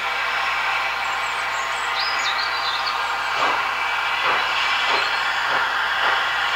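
Steam locomotive working: a steady hiss of steam, then from about halfway the exhaust chuffs begin, one beat every half second or so and quickening.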